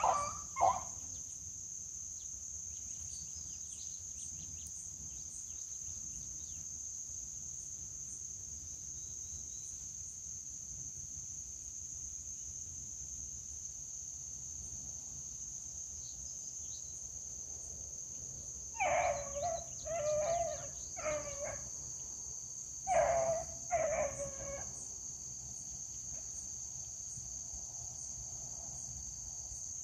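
Beagles baying as they run a rabbit through brush: a couple of short cries at the start, then clusters of quick yelps about two-thirds of the way through and again a little later. A steady high insect chorus drones throughout.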